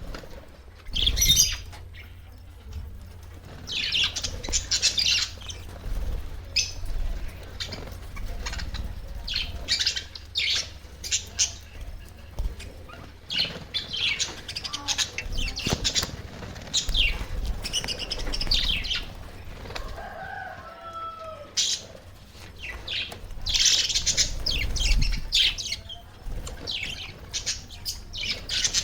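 Budgerigars chirping and chattering in repeated bursts of quick, high warbling notes.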